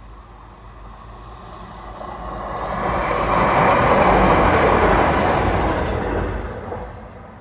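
A Class 170 Turbostar diesel multiple unit passes over the level crossing. Engine and wheel-on-rail noise swell over a couple of seconds, are loudest in the middle, and fade away near the end.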